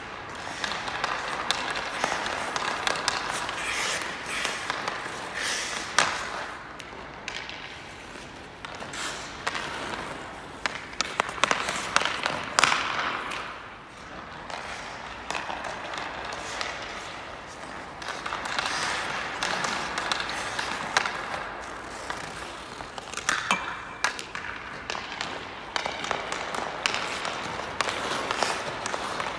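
Ice hockey skate blades scraping and carving across the ice in long swelling strokes, with sharp clacks of a hockey stick striking pucks now and then.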